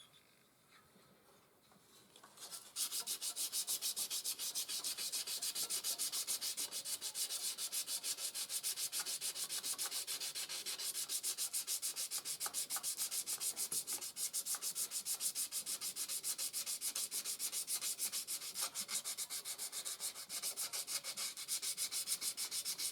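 Fine sandpaper rubbed rapidly back and forth on the rusted metal of a cultivator engine's flywheel, cleaning off the rust that was giving a weak spark. The sanding starts about three seconds in and keeps an even, quick rhythm.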